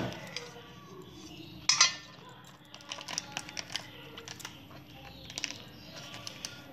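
Metal kitchenware clinking and knocking: a sharp double clank about two seconds in, then a run of lighter ticks and clicks.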